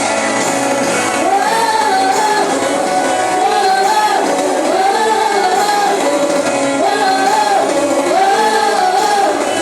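Worship music: a singing voice carries a flowing melody over instrumental accompaniment, the voice entering about a second in.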